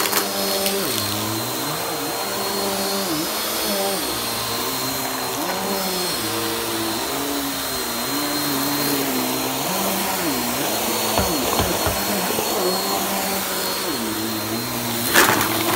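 Cordless stick vacuum running over a rug, sucking up shreds of tissue paper: a steady high motor whine over airflow hiss, with a lower hum that wavers in pitch. A sharp rattle sounds near the end.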